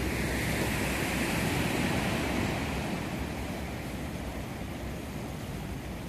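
Ocean surf rushing, swelling about two seconds in and then easing off.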